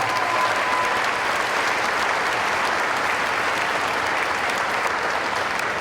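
Audience applauding in a large room, a steady dense clapping that holds at the same level throughout.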